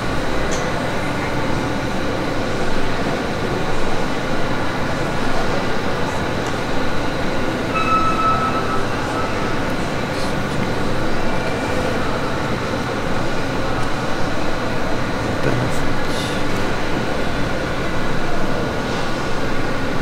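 Steady background din of a busy indoor shopping mall: distant crowd chatter over a constant hum.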